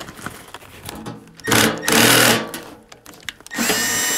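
Cordless drill/driver with a nut-driver bit running against the furnace blower housing, backing out screws to free the blower wheel. It gives one short run about a second and a half in, then a steady run with a high whine from about three and a half seconds in.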